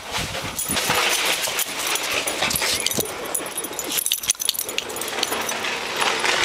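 A Staffordshire terrier nosing and digging through fresh snow: crunching and scraping of snow mixed with the dog's short snuffles and squeaks, with a brief lull about four seconds in.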